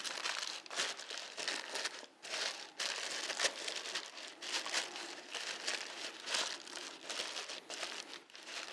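Crumpled baking paper crinkling and rustling as hands press two sheets into a springform pan, in a continuous run of irregular crackles.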